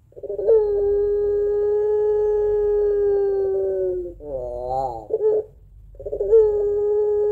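Puter pelung (ringneck dove) cooing its long call: a steady, slightly falling note held for about three and a half seconds, then a short wavering two-part phrase. A second long held coo starts near the end.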